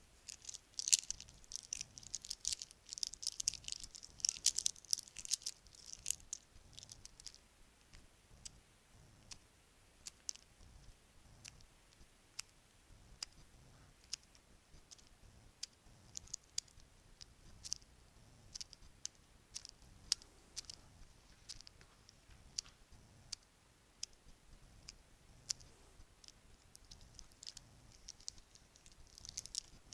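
Bracelets handled and clinking together, a run of small sharp clicks that is dense for the first several seconds, thins out to scattered clicks, and grows dense again near the end.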